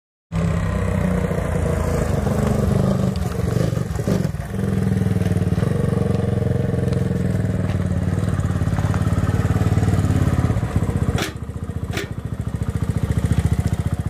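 Small 100cc single-cylinder motorcycle engine running steadily close by. About eleven seconds in, two sharp clicks sound and the engine sound turns lighter and more pulsing, like an idle.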